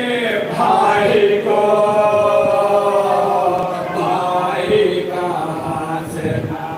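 Men chanting a marsiya, an Urdu elegy, unaccompanied, in long held melodic lines.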